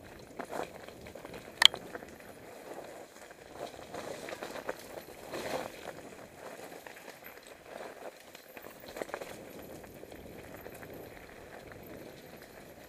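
Mountain bike rolling downhill on a dirt forest trail: steady tyre noise over soil and leaves with rattling from the bike, and a single sharp knock a little under two seconds in.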